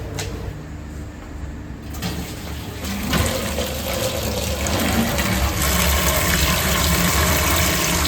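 Water running hard from a tap, filling a container, coming on about two seconds in and growing louder, over a low steady hum.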